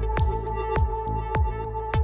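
Electronic background music: a deep kick drum falling in pitch on a steady beat about every 0.6 s, under held synth tones and light high ticks.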